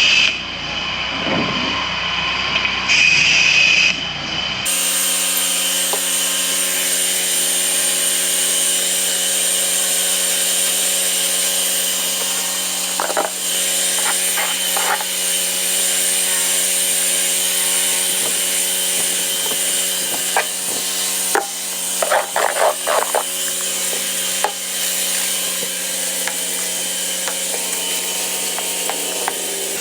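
Pressure washer running steadily, a machine hum with a constant hiss over it. The sound changes abruptly about four and a half seconds in, and there are a few short clusters of clicks and knocks around the middle.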